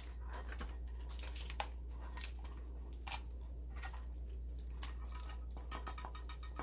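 A saucy seafood boil of crawfish, shrimp, clams, corn and potatoes being poured into an aluminium foil pan: scattered wet squishes and small clicks of shells and food landing, over a steady low hum.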